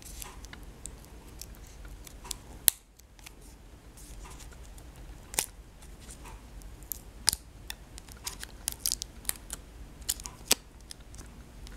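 Hands handling and working open a cardboard eyeshadow palette that has been closed shut: scattered, irregular sharp clicks and taps of card and packaging.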